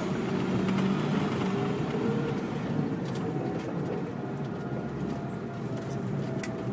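Military truck driving on a dirt road, heard from inside the cab: a steady engine and road drone with a few light rattles.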